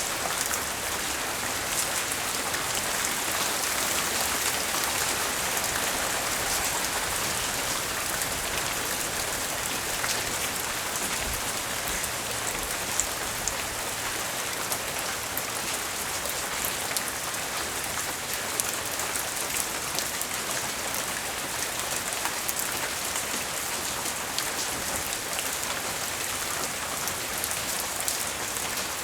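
Steady rain falling, with many small drops tapping and ticking on hard surfaces.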